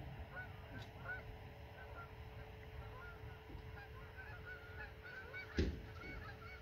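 A flock of geese honking: many short, overlapping calls throughout, with a single thump about five and a half seconds in.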